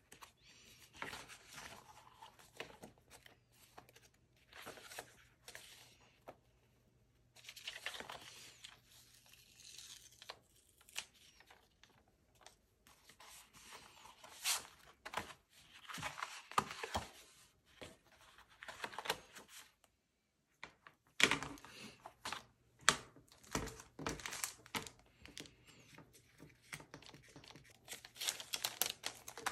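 Paper rustling and shuffling as printed photo cards and paper scraps are handled and sorted by hand, with scattered light taps, stopping briefly about two-thirds through.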